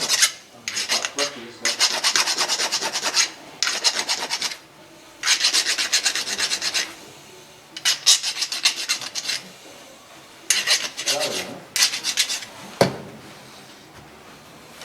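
Hand scraping or rasping on a part in quick back-and-forth strokes, in about seven bouts of up to a second and a half with short pauses, then a single sharp knock near the end.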